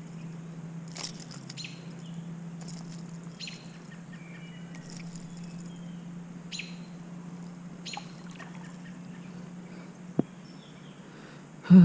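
Small birds chirping in short, separate calls, about seven over the first eight seconds, over a steady low hum. A single sharp click comes about ten seconds in.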